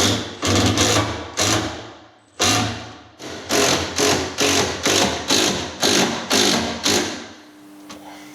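A tool working timber in a rapid series of short strokes, about two a second, stopping about seven seconds in.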